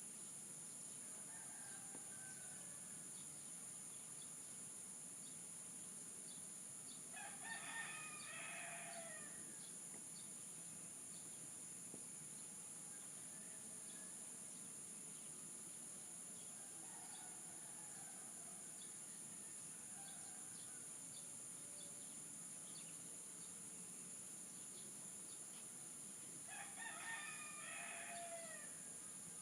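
Rooster crowing twice, about seven seconds in and again near the end, each crow lasting about two seconds, over a steady high insect drone and a few faint calls of other birds.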